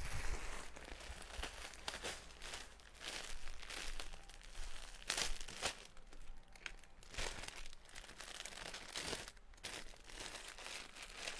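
Plastic bags crinkling and rustling in short, irregular bursts as bagged clothes are handled.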